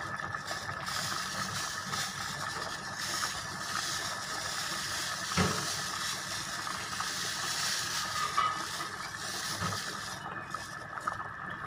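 Chicken macaroni soup simmering in an electric rice cooker, a steady hiss, as salt is poured into the broth from a bag. A single light knock about five and a half seconds in.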